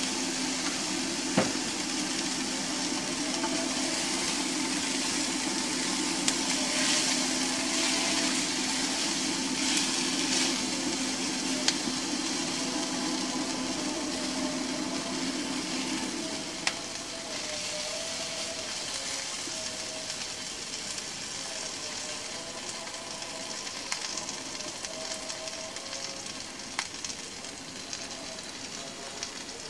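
Sliced mushrooms and onion sizzling in a nonstick frying pan, stirred with a spatula that knocks against the pan a few times. A steady low hum runs under the sizzle and stops about halfway through.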